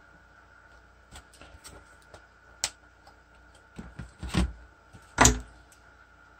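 Small tools and parts being handled on a workbench during circuit-board soldering work: scattered light clicks, a sharp tick about two and a half seconds in, then a run of heavier knocks with the loudest about five seconds in.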